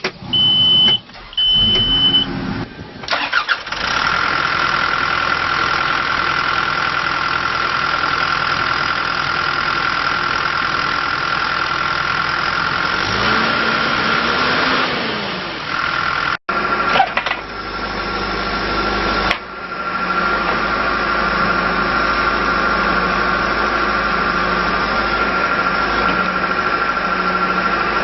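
Two short high beeps, then the 2006 John Deere 310SG backhoe loader's four-cylinder diesel cranks and starts about three seconds in. It settles into steady running with a constant high whine, and about halfway through it revs up and back down once.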